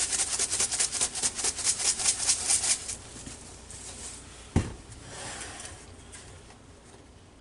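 A lemon pepper shaker jar being shaken hard over a bowl of chicken: a quick run of rattling shakes that stops about three seconds in. About a second and a half later comes a single knock as the jar is set down on the counter.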